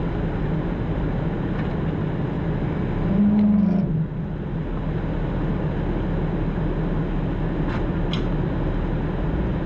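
Jeep Wrangler engine running at low speed on a rough off-road trail, with a brief rise in revs about three seconds in.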